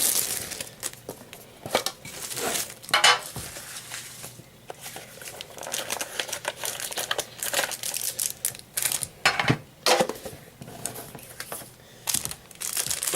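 Trading-card pack wrapper being torn open and crinkled, with the cards handled inside it: irregular crackling with sharp snaps, loudest about three seconds in and again around nine to ten seconds.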